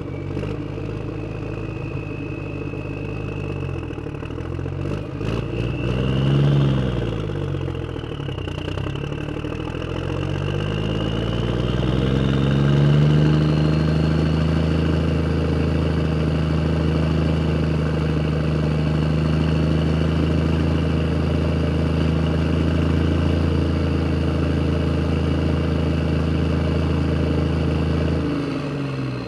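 A motor vehicle's engine revving up and back down twice, then climbing to a steady, higher engine speed that holds for about fifteen seconds before falling away near the end.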